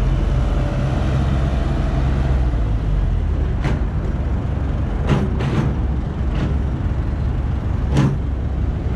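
Caterpillar 312B excavator's diesel engine running steadily, with about five short sharp knocks over the drone in the second half.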